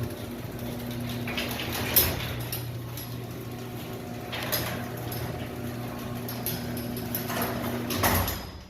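Electric garage door opener motor humming steadily as it drives the door down, with a sharp clunk about two seconds in. Near the end the door hits the floor and the motor stops. The door closes with a slam, the sign of a down-limit still set to travel too far.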